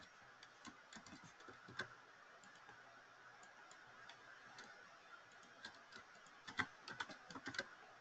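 Faint clicking of computer keys, a few scattered taps and then a quick run of keystrokes near the end.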